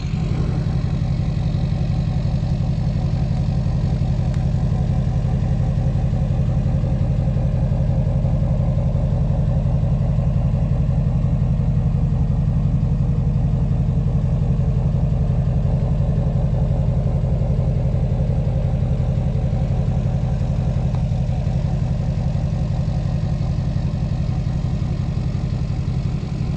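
LBZ Duramax 6.6-litre V8 turbodiesel idling steadily through a 5-inch straight-pipe exhaust.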